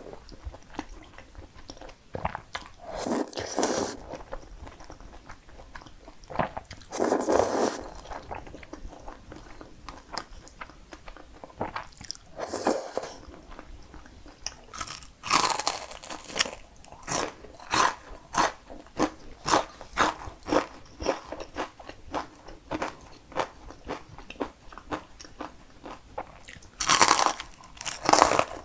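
Close-miked eating sounds: a few slurps of cream-sauced spaghetti early on, then a long run of steady crunchy chewing, about two crunches a second, on a crisp breaded pork cutlet.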